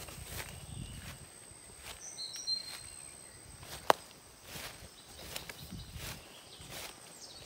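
Footsteps of a person walking at an even pace through grass and weedy undergrowth, about one step every three-quarters of a second. A sharp click about four seconds in is the loudest sound, and a few short high bird chirps come just after two seconds.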